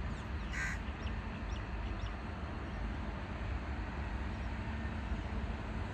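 A crow caws once about half a second in, followed by a few faint high bird chirps, over a steady low rumble.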